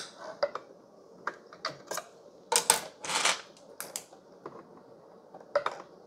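Irregular light clicks and taps of hand tools and plastic parts being handled, with a short scrape about three seconds in. A screwdriver is set down on a stone countertop and a flashlight is picked up.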